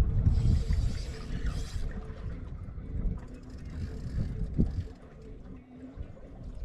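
A small fishing boat sitting on choppy open water: an uneven low rumble of wind and water against the hull, easing off in the last couple of seconds, with two short hisses in the first two seconds.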